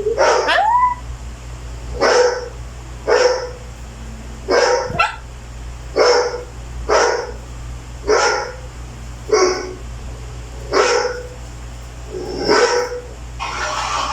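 Dog barking repeatedly, about ten single barks spaced roughly a second apart, with a short rising whine just after the first bark.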